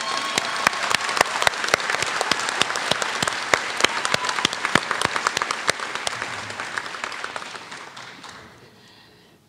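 Audience applauding, a dense patter of many hands clapping that thins and fades out near the end.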